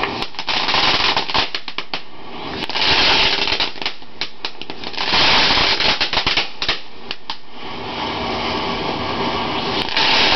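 Consumer fireworks going off: several spurts of loud hissing, with rapid runs of sharp crackling pops in between.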